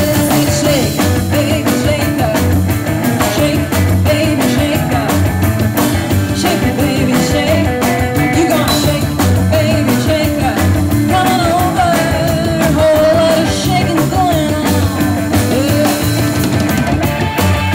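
Live rock'n'roll band playing with electric guitar, bass and drums: a steady beat under a bending melodic lead line.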